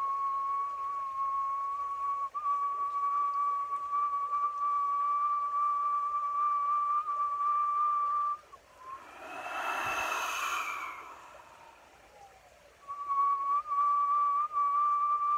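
A man whistling through pursed lips, holding one long, steady high note for about eight seconds. The note breaks off for a breathy rush of air, then the same note resumes near the end.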